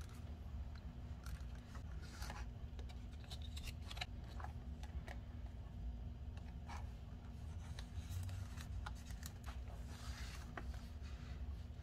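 Paper pages of a handmade gluebook being turned and handled: scattered short papery rustles and crinkles over a low steady hum.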